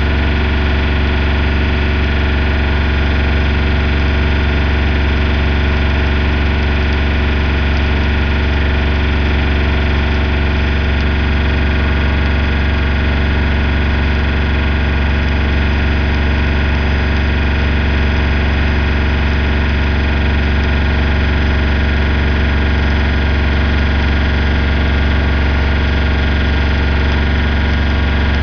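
MOSA TS300 welder generator's engine running steadily under welding load, a deep constant hum, with the hiss and crackle of the welding arc over it.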